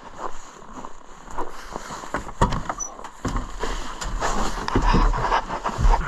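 Scattered knocks, clicks and scrapes of someone moving about and handling a tractor, with a few heavier low thumps near the end. No engine is running yet.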